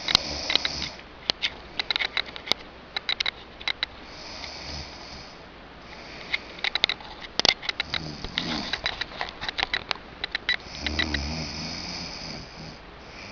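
A person snoring, with a breath about every three to four seconds and deeper rattling snores about eight and eleven seconds in. Many sharp clicks are scattered between the breaths.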